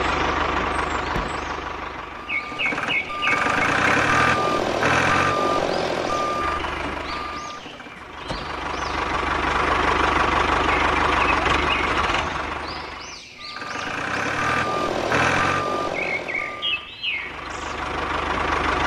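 Heavy diesel vehicle engine running, its level swelling and dipping, with two runs of evenly spaced reversing-alarm beeps, about two a second, each starting just after a few quick high chirps.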